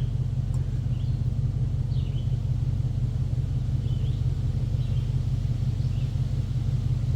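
Steady low rumble or hum, with faint short chirps every second or so.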